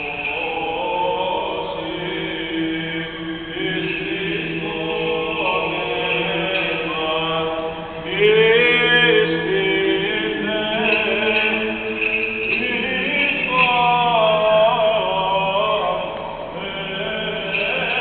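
Byzantine chant of a Greek Orthodox baptism service: voices singing long, wavering melodic lines over a steady low held note, growing louder about eight seconds in.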